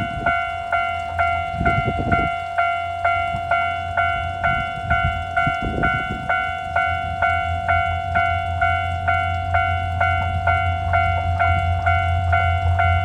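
Japanese railroad crossing warning bell clanging "kan-kan" at about two strikes a second. Under it a low train rumble grows louder from about halfway through as the train approaches the crossing.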